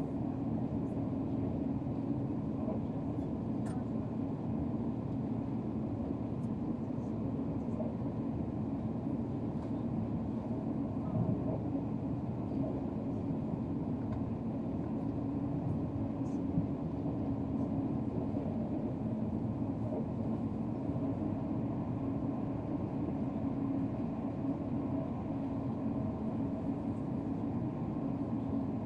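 Steady running noise inside a high-speed train cabin at speed: an even low rumble and hum of the train, with a few faint clicks.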